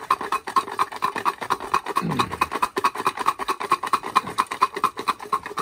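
Garlic cloves rattling inside a container shaken rapidly back and forth, about six knocks a second, knocking the papery skins loose from the cloves.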